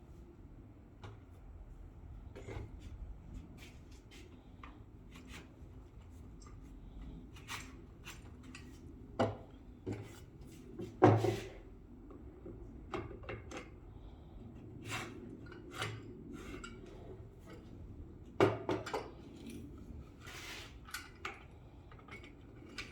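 Scattered clicks, knocks and scraping of roof crossbar parts being handled and slid into place, with a louder knock about halfway through and another a few seconds later.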